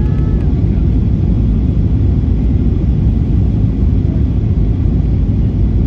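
Steady low rumble inside the passenger cabin of a Boeing 737-800 on approach to land: the engines and the airflow over the fuselage.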